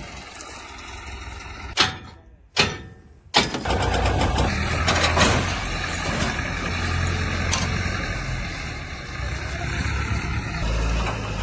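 Diesel engine of a JCB 3DX backhoe loader running steadily. Two or three sharp clicks and a brief drop to near silence come about two seconds in, before the engine sound comes back strongly.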